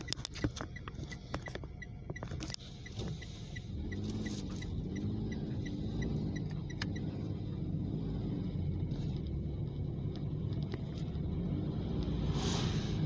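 Car driving, road and engine noise heard from inside the cabin, a quick run of light ticks over the first few seconds, then a steady low rumble that grows louder about three seconds in as the car picks up speed.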